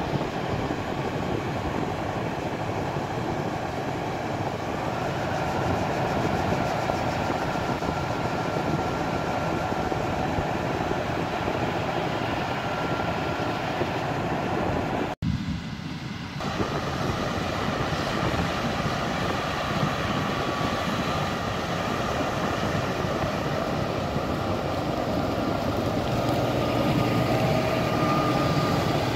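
Fendt 900-series tractor running steadily while its Horsch grain cart's auger unloads grain maize into a truck trailer, with a faint steady whine in the noise. About halfway through, the sound drops out for an instant. It resumes as the steady running of the tractor and the Claas Lexion 7700 combine harvesting grain maize.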